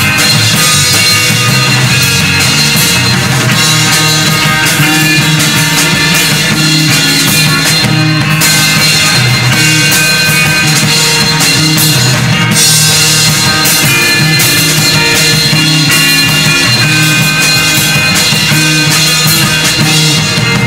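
Rock song, instrumental stretch with no singing: guitar and drum kit playing loud and dense.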